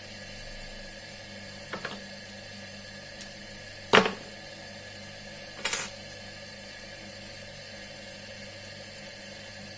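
Three separate sharp metallic clacks, like small steel knife parts being knocked or dropped onto a metal surface, the middle one the loudest, over a steady low hum.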